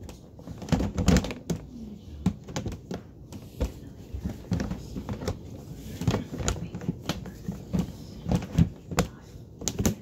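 Plastic lid of a stacked sifting cat litter box being fitted on and snapped into place: a string of irregular plastic clicks and knocks.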